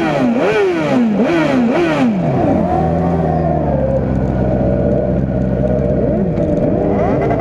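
Sport motorcycle engine revved in four quick throttle blips in the first two seconds, each pitch rising sharply and then falling away. It then runs steadily at low revs, with one more brief rev near the end.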